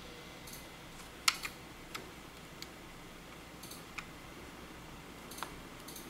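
A hard plastic toy Airbus A380 model being handled and turned in the hands: a few scattered light clicks and taps over a faint room hiss, the sharpest about a second in.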